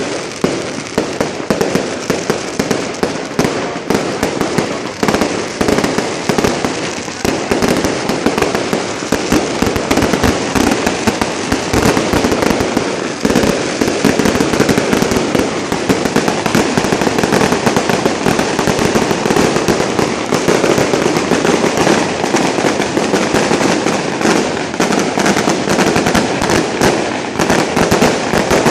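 Firecrackers going off in the street in a rapid, continuous barrage of sharp pops and crackles, without a break.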